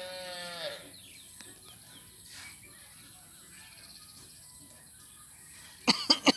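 An animal's long call, falling in pitch, at the start. Faint short chirps follow. Near the end comes a quick run of four or five loud sharp clicks.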